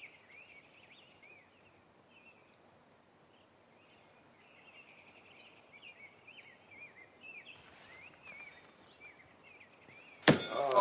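Faint birdsong, many short chirps, over a hushed quiet. Near the end a thrown horseshoe lands with a single sharp metallic clank at the stake, and loud noise swells in right after it.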